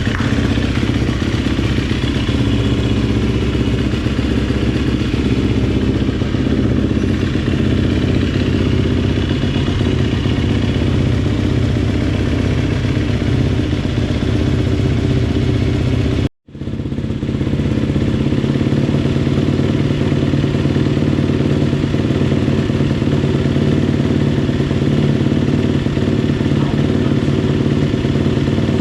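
Rebuilt GasGas dirt bike engine running steadily on its first run after the rebuild. The sound drops out for an instant a little past halfway, then the steady running carries on.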